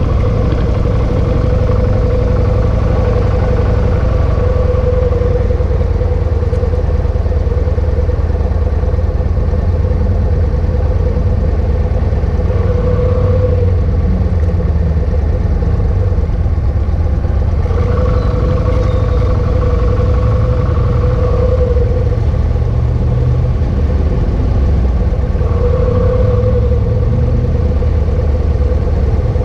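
Motorcycle engine idling steadily, with a humming tone that swells and fades several times.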